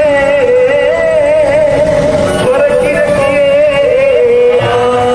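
Devotional music with a voice singing a wavering, ornamented melody, settling into a held note near the end.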